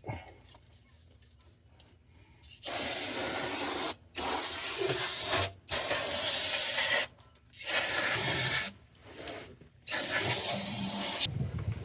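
Five bursts of spray hissing from an aerosol can, each a second or so long with short pauses between.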